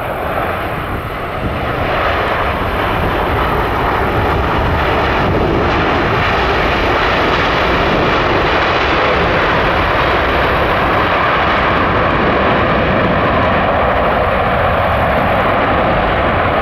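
Boeing 787-9's GE GEnx-1B jet engines during touchdown and landing rollout: a steady rushing noise that grows louder over the first two seconds and then holds.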